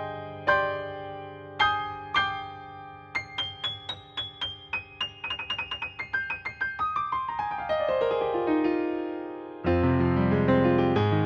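Yamaha P-125A digital piano being played: a few held chords, then a fast run of notes that climbs and falls back down, landing on a full low chord near the end.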